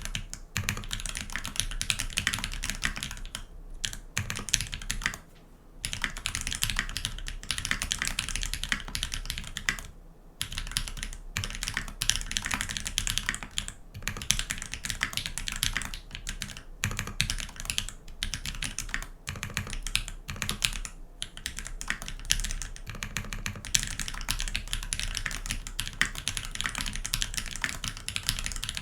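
Steady, rapid typing on a TX65 V2 custom mechanical keyboard with lubed Holypanda tactile switches on a brass plate, under GMK keycaps, with a few brief pauses between runs of keystrokes.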